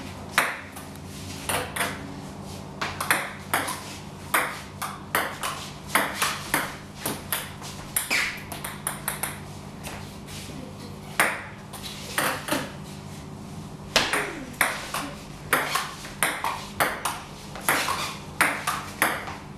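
Table tennis ball clicking back and forth in rallies, bouncing on the table and being struck by paddles, the runs of clicks broken by short pauses between points. A steady low hum runs underneath.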